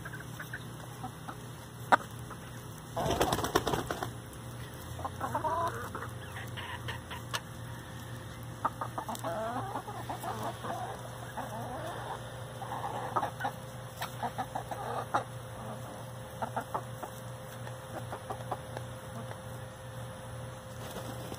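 Domestic chickens clucking softly as they feed, with sharp taps of beaks pecking at a plastic bowl. A brief burst of wing flapping comes about three seconds in.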